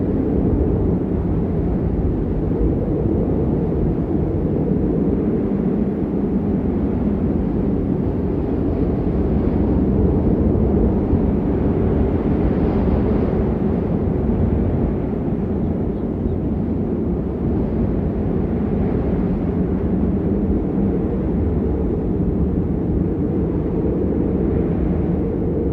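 Blizzard wind blowing steadily as a deep, low rush with little hiss, swelling slightly a little before the middle.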